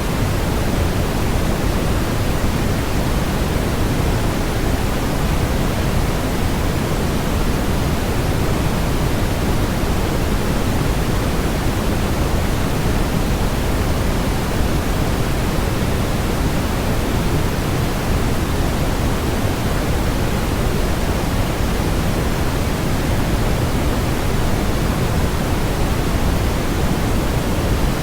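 Steady generated noise, sold as white noise but heavier in the bass and thinner in the treble, like pink noise: an even, unchanging rushing hiss.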